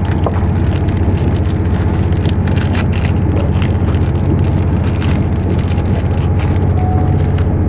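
Steady cabin noise of a Class 222 Meridian diesel multiple unit running at speed: a low hum from the train's underfloor diesel engines and wheels on the rails, with frequent light rattles and clicks over it.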